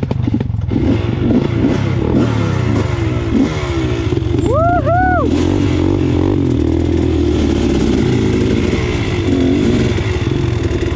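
Dirt bike engines running on a slow trail ride, the pitch rising and falling as the throttle comes on and off, heard from the rider's own bike. About four and a half seconds in, a short whistle that rises and falls twice.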